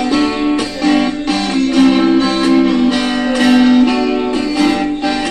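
Instrumental break in a country song: guitar strumming and picking chords, with no singing.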